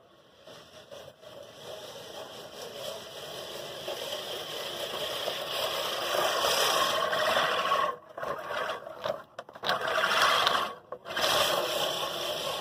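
American Lawn Mower Co. 1304-14 14-inch five-blade push reel mower cutting grass: the spinning reel makes a steady scraping whir that grows louder as the mower is pushed closer, then drops out briefly a few times in the second half.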